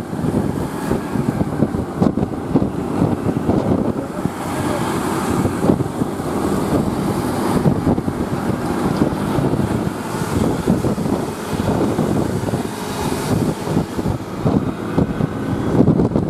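Intercity bus's diesel engine and exhaust running with a continuous, fluctuating rumble, with wind buffeting the microphone.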